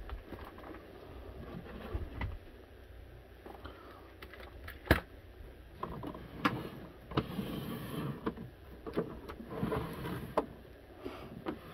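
Knocks, taps and scraping from the plastic case of a Radio Shack TRS-80 Model 4P computer being handled and turned around on a wooden desk. There is one sharp knock about five seconds in, then a busier stretch of bumps and rubbing.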